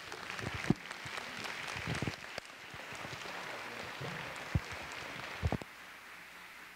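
An audience clapping in an auditorium, with a few sharper knocks standing out. The applause dies down about five and a half seconds in.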